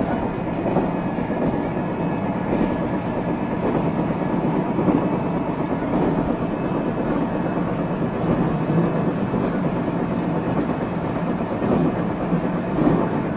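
Interior running noise of a JR Central 373 series electric multiple unit travelling at steady speed: a continuous rumble and rush of wheels on rail, with a faint steady whine.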